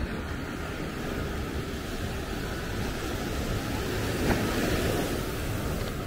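Ocean surf washing up on a sandy beach, with wind rumbling on the microphone; the surf swells louder about four seconds in.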